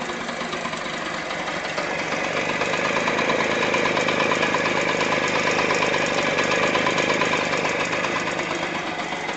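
Restored Vespa VN1M's single-cylinder two-stroke engine running. It idles, is revved up a little about two seconds in and held there, then eases back toward idle near the end.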